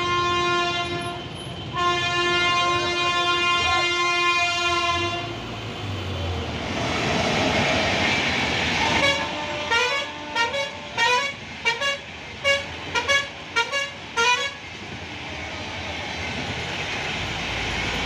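A long, steady vehicle horn blast, then a quick string of short horn toots from a bus, over the rumble of a passenger train crossing the railway bridge overhead.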